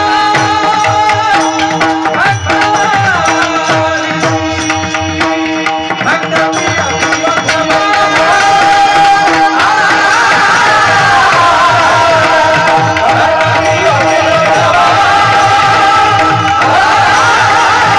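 Kirtan devotional music: a voice singing a gliding melody over a steady held drone and tabla strokes, getting louder about eight seconds in.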